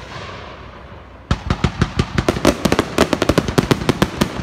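Aerial fireworks going off: after a fading echo from a bang, a rapid run of sharp cracks and bangs, about eight a second, starts about a second in and keeps going.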